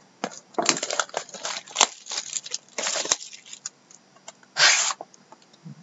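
Plastic shrink-wrap crinkling and tearing as it is cut and pulled off a cardboard trading-card hobby box, in four or so short crackly bursts, the loudest near the end.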